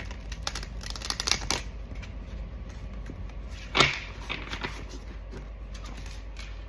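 A deck of spirit-animal oracle cards being shuffled by hand: a quick run of flicking clicks for the first second and a half, then one sharp knock a little before four seconds in.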